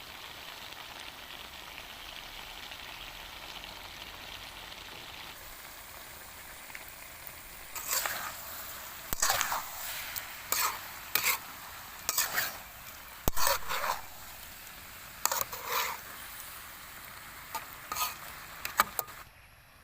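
Pig's blood and holy basil frying in a pan with a steady sizzle. From about eight seconds in, a utensil stirs and scrapes the pan in about a dozen short strokes, with one sharp clack midway, before the sound cuts off near the end.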